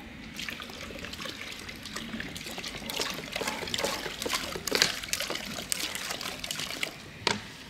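Water splashing and dribbling in a dish as animals drink from it: many small irregular splashes, busiest around the middle, with one sharper click near the end.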